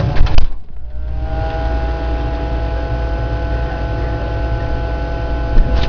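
A couple of sharp clicks, then a steady machine hum: several held tones rise slightly as it starts, about a second in, and then hold steady over a low rumble.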